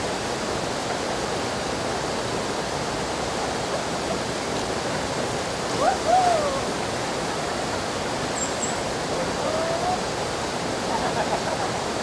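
Waterfall: a steady rush of water pouring over rocks into pools. A few brief gliding calls rise over it, the loudest about halfway through.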